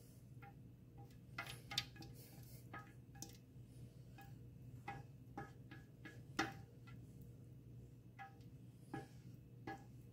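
Rubber spatula scraping and tapping inside a stainless steel mixing bowl: irregular light clicks and knocks, some with a brief metallic ring, over a low steady hum.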